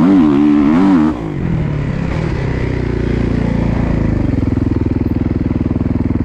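Dirt bike engine on the trail, revving up and down under throttle, then backing off about a second in and running at lower revs with a steady, even chug near the end.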